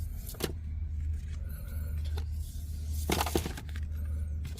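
Plastic wrapper crackling and tearing as a Weiss Schwarz trading-card trial deck is unwrapped, in short bursts with the biggest about three seconds in, over a steady low hum.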